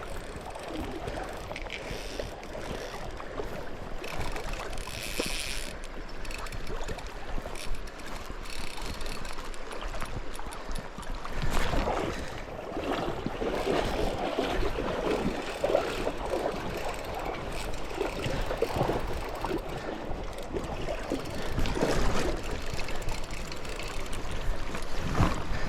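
River water rushing and gurgling around a small inflatable raft, with irregular louder surges and splashes from about halfway through.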